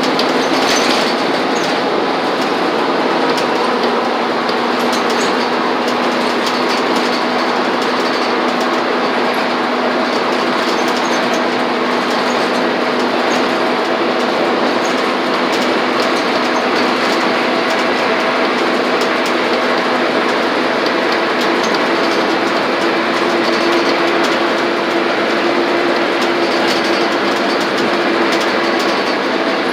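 Cabin of a city transit bus travelling at highway speed: steady engine drone and road noise, with a low hum and light clicks and rattles from the interior. A second, higher hum comes in about two-thirds of the way through.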